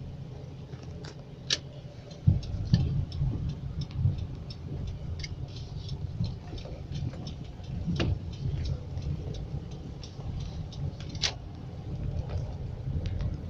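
Rain falling as scattered drops, ticking irregularly over a low rumble, with a few louder drips.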